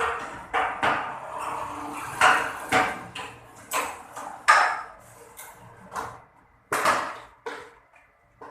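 A series of about a dozen irregular knocks, clatters and rustles from things being handled on a work surface, the loudest about four and a half seconds in and the last ones fainter.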